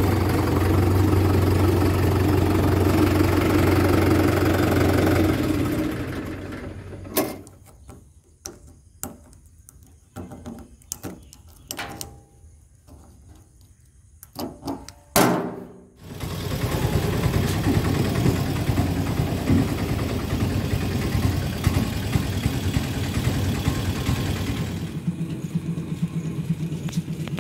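Swaraj XM tractor's diesel engine idling, then dying away about five or six seconds in. A quiet stretch follows with scattered clicks and knocks as the fuel-tank cap is handled. From about halfway through, a steady engine sound runs again.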